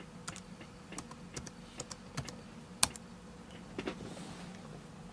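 Password being typed on a mid-2011 MacBook Pro's built-in keyboard: a dozen or so irregular key clicks, with one louder click near the middle.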